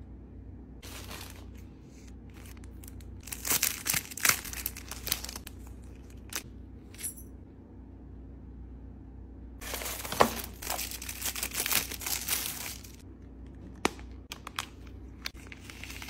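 Small plastic packaging bags crinkling as they are handled and opened, in several irregular bursts, the longest and loudest about ten to thirteen seconds in.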